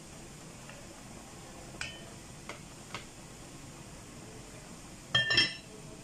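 A few light knocks of a wooden spoon against a pot, then the heavy lid of an enamelled Dutch oven set down on the pot with a loud, ringing clank about five seconds in. A steady hiss sits underneath.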